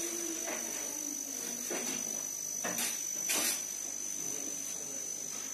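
A steady high-pitched whine with a faint hiss, and a few short soft rustles about two to three and a half seconds in.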